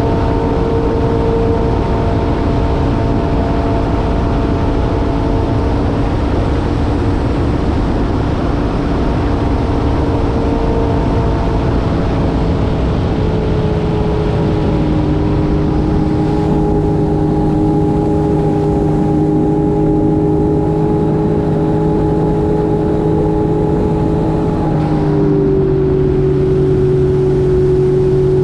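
Jet ski engine running steadily at speed over a constant rushing noise. Its pitch shifts slightly a little after halfway and changes again near the end.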